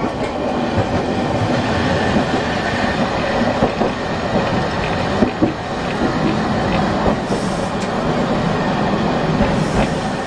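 Streetcar of the Nagasaki Electric Tramway running along street track, heard from inside the front of the car: a steady rolling rumble of wheels and motor, with scattered knocks from the wheels on the rails.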